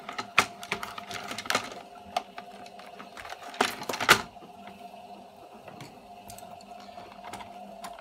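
Hard plastic clicks and knocks as the pressure-switch assembly of a dismantled electric shower is handled and worked loose, the loudest about four seconds in. Under them a washing machine runs with a steady hum.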